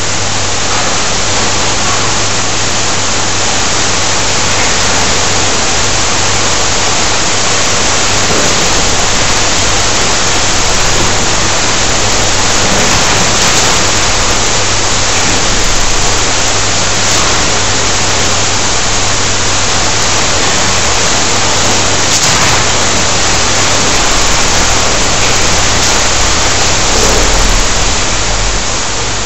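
Dense, steady hiss and crackle of many sparklers burning at once, over a steady low hum.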